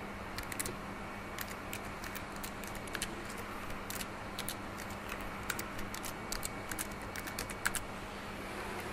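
Computer keyboard keys being typed in short, irregular runs as a phrase is entered, stopping shortly before the end, over a faint steady hum.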